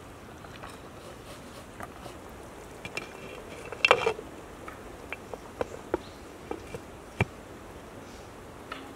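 A glass lid is set onto a metal cooking pot with a short clatter and ring about four seconds in. A scattering of single sharp clicks and taps follows over the next few seconds.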